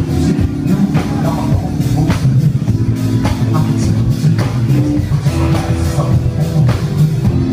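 Live rock band playing loud, with guitar and drum kit over a strong low end and regular drum hits.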